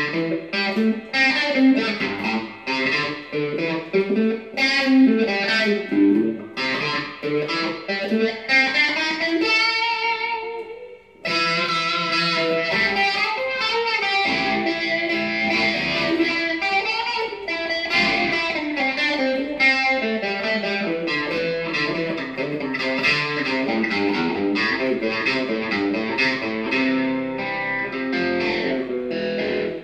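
Electric guitar played through a Morley wah-volume pedal into a Fender combo amp: a run of picked lead notes and phrases. About ten seconds in, one held note fades almost to nothing before the playing comes back in.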